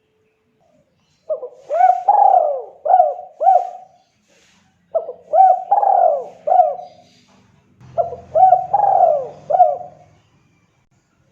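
Spotted dove (tekukur) cooing: three phrases of four or five rolling coos each, separated by short pauses.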